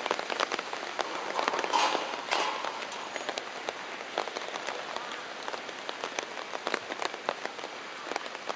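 Steady rain falling on wet pavement and umbrellas, with many sharp drop taps close by and a brief louder swell about two seconds in.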